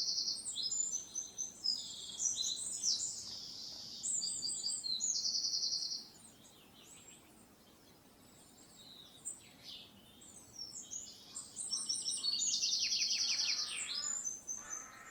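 A songbird singing long, complex phrases of high, rapid trills and warbles, in two bursts with a quieter pause of several seconds between them.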